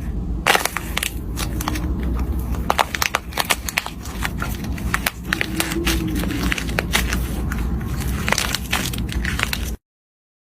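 Slime being squeezed and pressed by hand, giving a dense run of crackling pops and clicks over a low steady rumble; it cuts off suddenly near the end.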